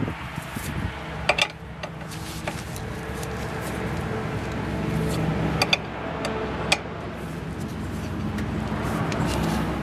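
A motor vehicle engine running nearby, a steady hum that grows louder over several seconds, with a few sharp metallic clicks from a lug wrench being worked on a van's wheel nuts.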